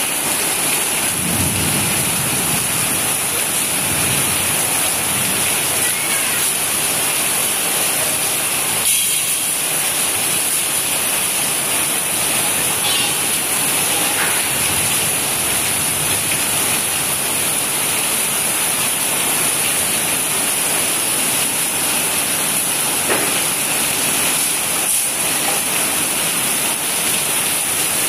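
Heavy rain pouring steadily, an even hiss of rain on roofs and wet ground.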